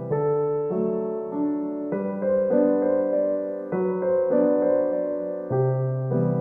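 Background music: a gentle electric-piano tune, notes and chords changing about once a second.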